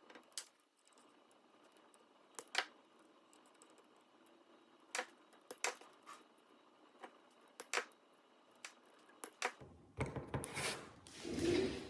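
Irregular sharp clicks and taps, about a dozen of them spaced a second or so apart, with a quick flurry of clicks and a short rushing noise near the end.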